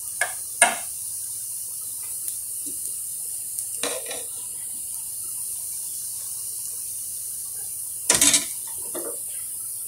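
A metal slotted spoon knocking and scraping against a coated pot as cooked rice is stirred and scooped: two sharp clicks near the start, a short scrape about four seconds in, and a louder quick rattle of knocks about eight seconds in. A steady high hiss runs underneath.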